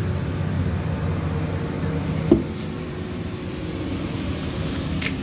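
Steady low mechanical hum, like an engine or machine running, with a single sharp tap a little over two seconds in.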